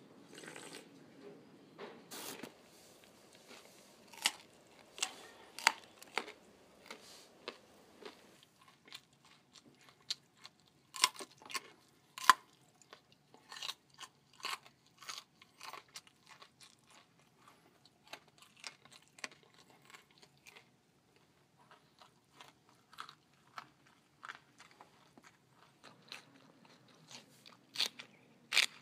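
A person eating loudly on purpose: sharp, crunchy bites and chewing at an irregular pace, some crunches much louder than the rest.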